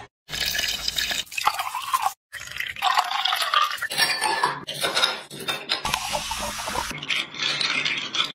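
Kitchen sounds of a drink being made: a lemon half crushed in a plastic hand-press juicer with juice dripping, then ice cubes clinking into a glass of lemon juice and a spoon stirring the iced drink.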